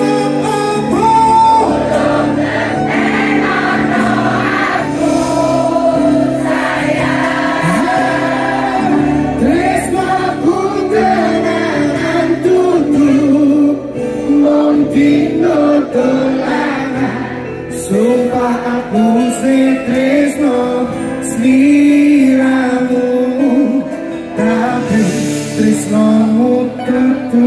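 Live band music with a male lead singer and many voices of the crowd singing along, recorded from within the audience.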